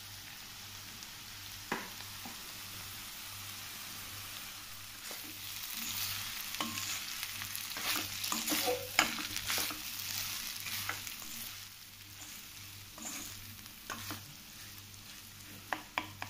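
A spoon stirring cooked rice into vegetables frying in a metal kadai: a steady sizzle, with scraping and clicks of the spoon against the pan that are busiest in the middle of the stretch.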